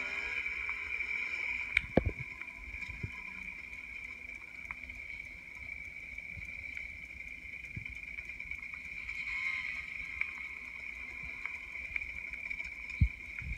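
Dirt bike engine running along a trail, played back through laptop speakers, with a steady high-pitched drone and a shift in pitch a little past the middle. Two sharp thumps, one about two seconds in and one near the end.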